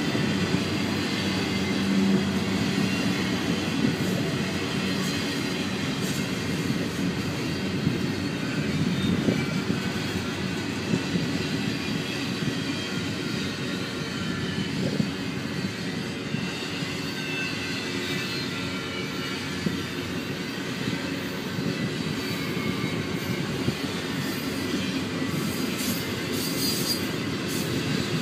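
Double-stack container cars of a freight train rolling past: a steady rolling noise of steel wheels on the rails, with faint wheel squeal.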